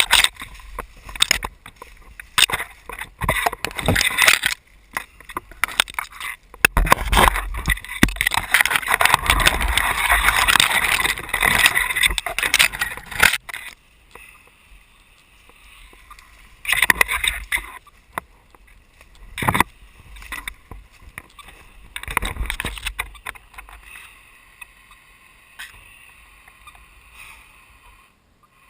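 Someone climbing uphill through a mountain laurel thicket: branches and leaves rustling, snapping and scraping close to the microphone, with footsteps in leaf litter. The noise is dense for about the first thirteen seconds, then breaks into scattered crackles and brushes.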